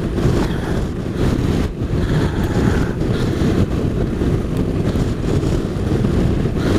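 Strong wind buffeting the microphone of a motorcycle riding at speed: a loud, gusting low rumble of wind noise that covers the bike's own sound.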